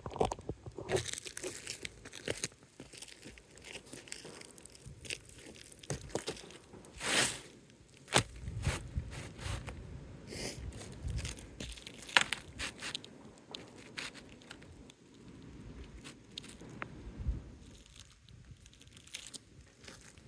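Asphalt roof shingles being handled and shifted on the roof: scattered scrapes, crinkles and light knocks, with one longer rasping noise about seven seconds in.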